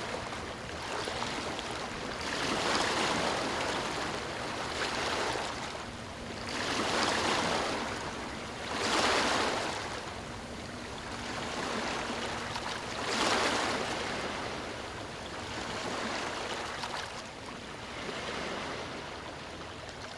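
Ocean waves breaking on a beach, a steady wash of surf that swells and falls back every few seconds.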